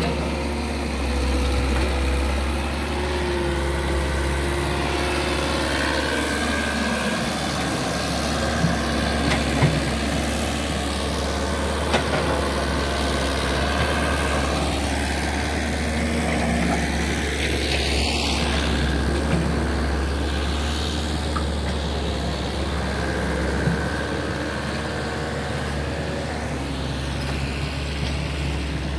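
Mini excavator's diesel engine running steadily, with a few sharp knocks standing out above it.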